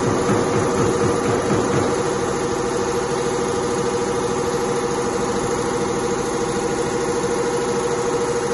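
Richpeace two-head CNC leather sewing machine running steadily, its needles stitching at high speed with an even tone.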